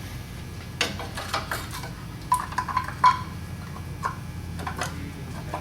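Scattered small metallic clinks and taps, a quick cluster with a short ring about halfway through, as small bolts and a bolted-on underbody shield are handled and fitted by hand, over a steady low hum.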